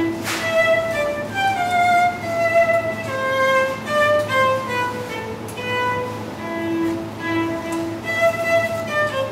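Solo cello bowed, playing a slow melody of sustained notes that move smoothly from one to the next, some held for about a second.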